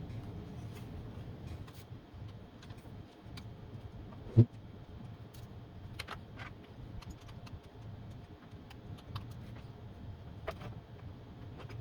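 Scattered light clicks and taps as plastic ISA slot connectors are handled and pressed into a circuit board, with one heavy thump about four and a half seconds in, over a low steady hum.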